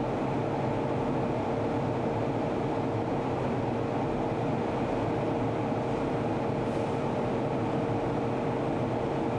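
A stove fire burning with a steady low rumbling roar and a constant hum running through it.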